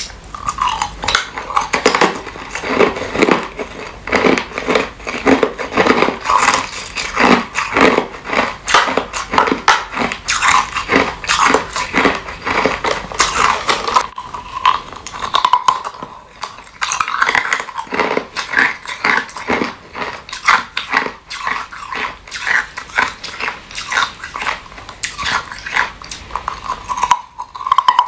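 Hard clear ice, frozen in a plastic water bottle, being bitten and chewed: a rapid run of sharp crunches and cracks, with a brief pause about halfway through.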